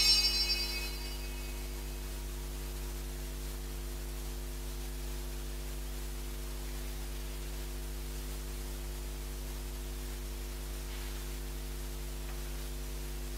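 Steady electrical mains hum with a faint hiss. A bell's ringing dies away about a second in.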